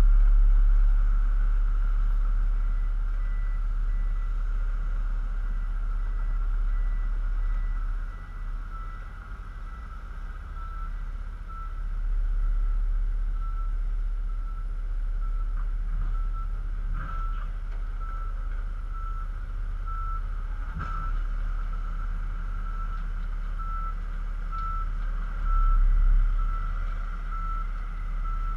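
Reversing alarm of a Bell articulated dump truck beeping steadily about once a second as the truck backs up to the excavator, growing louder as it comes closer. Under it runs the low steady rumble of diesel engines, swelling briefly near the end.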